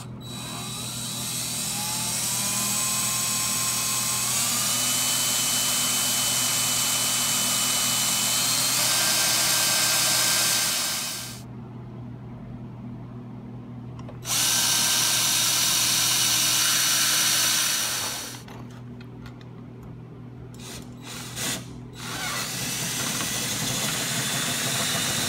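DeWalt cordless drill boring holes in a car's rear tag panel for rivet nuts. The first run lasts about ten seconds, its pitch climbing in the first few seconds. The drill stops, starts again sharply a few seconds later, runs in short bursts, then runs steadily near the end.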